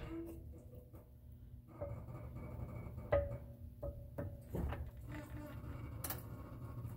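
Floor jack being slowly released under a minivan's subframe as the van settles onto a steel jack stand: faint metallic clinks and knocks, about five in a few seconds, some with a short ringing tone.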